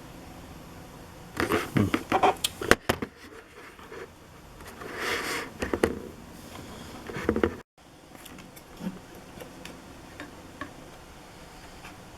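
Handling noises from a Chronos digital chess clock being worked on by hand: irregular clicks, taps and short scrapes in three bunches, with the sound cutting out briefly about two-thirds of the way through.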